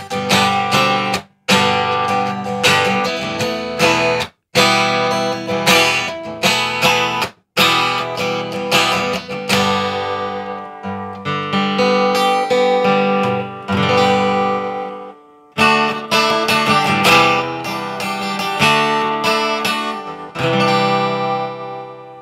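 Acoustic guitar strumming open chords, a G, C and D progression, with short silent breaks between some of the changes. The last chord rings out and fades near the end.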